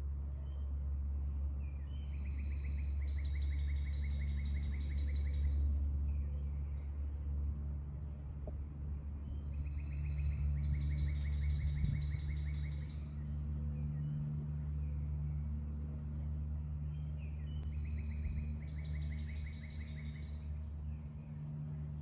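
A songbird repeats its song three times, about eight seconds apart: a couple of short notes, then a fast trill lasting about two seconds. A steady low rumble runs under it throughout.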